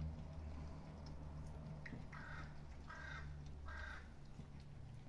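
A crow cawing three times in quick, even succession, faint, over a steady low hum.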